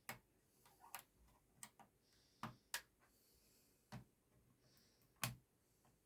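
Faint, irregular small clicks and taps of plastic laptop parts being handled, about seven in a few seconds, as the keyboard's flat ribbon cable connectors are unlatched and pulled free.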